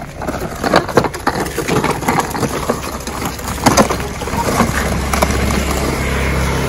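Hard plastic wheels of a children's ride-on swing car clattering and grinding over rough concrete, with many small knocks. A low steady hum joins about two-thirds of the way through.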